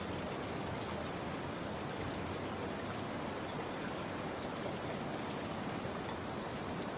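Steady rain falling, an even hiss of drops with no distinct strikes.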